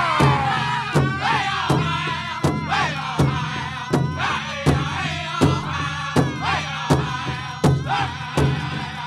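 Powwow drum group playing a men's prairie chicken dance song: several voices singing over a big drum struck on a steady beat, about four strokes every three seconds.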